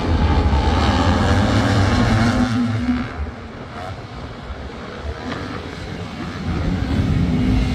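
250cc four-stroke supercross bikes revving on the track, their engine pitch rising and falling as riders work the throttle. Loud at first, fainter for a few seconds in the middle, then loud again near the end.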